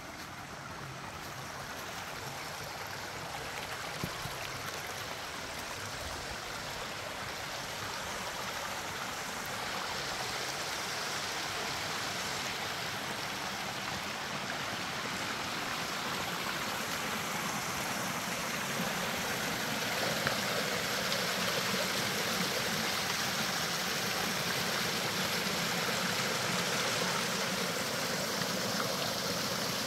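Creek water rushing and splashing in a steady wash that grows gradually louder. A couple of brief knocks sound about four and twenty seconds in.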